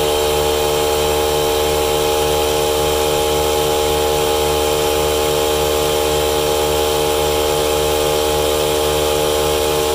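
Ryobi 18V cordless air compressor running steadily while it inflates a tire through a hose and gauge chuck: a constant drone with a fast, regular pulse of about four beats a second underneath.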